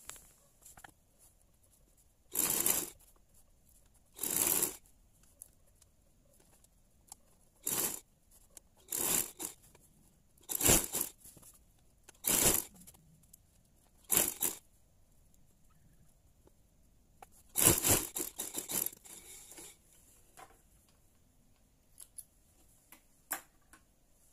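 Satin-like China silk curtain fabric rustling and swishing as it is moved and smoothed by hand, in about eight short swishes a couple of seconds apart, with a busier run of rustling about 18 seconds in.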